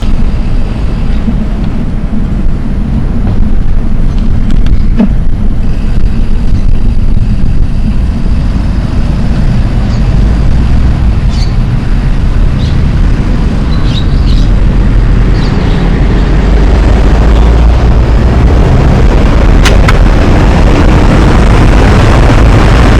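Wind buffeting the microphone of a camera on a moving bicycle: a steady, heavy rumble that grows a little louder in the second half, with a few brief clicks.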